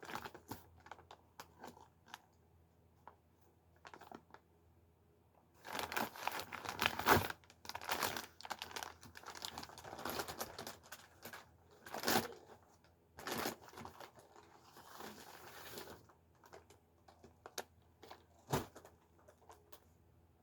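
Packaging being crinkled and torn open by hand: irregular bursts of rustling and ripping, busiest around six to seven seconds in, with a few sharp crackles later and quieter gaps between.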